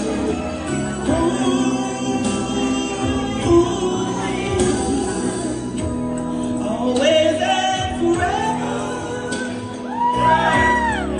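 A voice singing a smooth, gliding melody over backing music.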